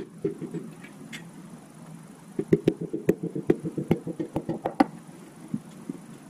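Hammer handle tapping a piston down through a ring compressor into a cylinder bore of a 350 V8 block: a few taps just after the start, then a quick run of light taps, about five a second, for a couple of seconds from about two seconds in.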